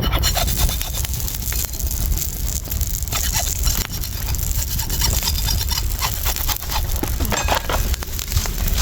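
Open fire of coconut branches crackling with many small sharp pops, over a low rumble of wind on the microphone.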